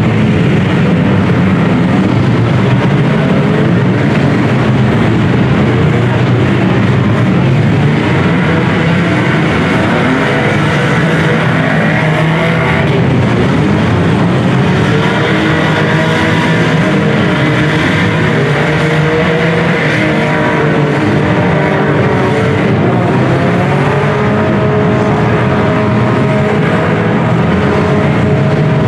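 Several demolition-derby compact cars running at once, their engines revving up and down over one another as the cars accelerate and reverse.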